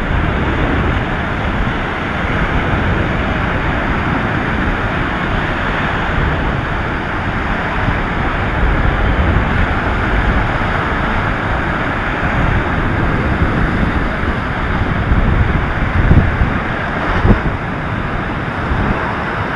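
Surf breaking and washing up a sandy beach, a steady rushing wash, with wind rumbling on the microphone and two brief louder bumps near the end.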